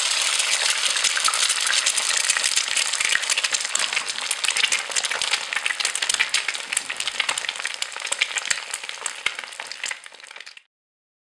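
Steady sizzling crackle, dense with tiny pops, like food cooking in a hot pan; it fades and cuts off shortly before the end.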